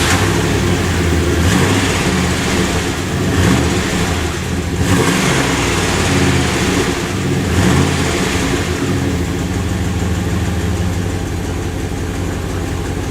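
1999 Dodge Ram 1500's 5.9-litre 360 V8 running through its factory muffler, just after starting. It is revved briefly about four times in the first eight seconds, then settles to a steady idle.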